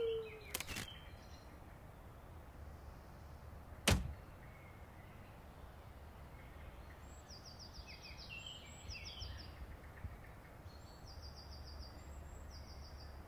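Sound-design effects over a low steady hum: a couple of light clicks near the start, a single sharp hit about four seconds in that is the loudest sound, then from about seven seconds on, runs of short, high, quickly repeated chirps like small birds twittering.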